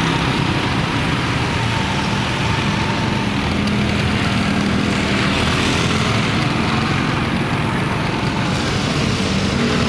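Steady city street traffic on a wet road: motor engines running and tyres hissing on wet asphalt, with no single vehicle standing out.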